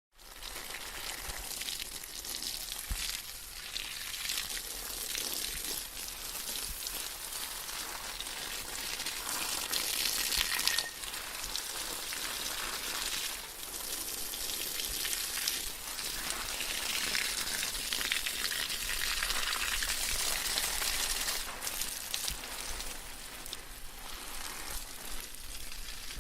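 Water spraying from a garden hose: a steady, hissing spray that swells and eases, peaking and then dropping off abruptly about eleven seconds in.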